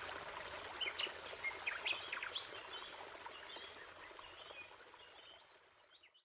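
Faint bird chirps over a steady rushing hiss, fading out to silence just before the end.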